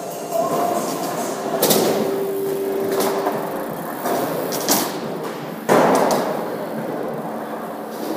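BMX bike riding over skate ramps, its tyres rolling with several knocks and clatters from landings and the frame, the loudest about six seconds in, echoing in a large hall.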